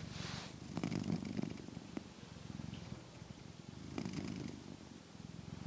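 Domestic cat purring steadily, close to a clip-on microphone. The purr swells and fades with its breathing, louder near the start and again about four seconds in.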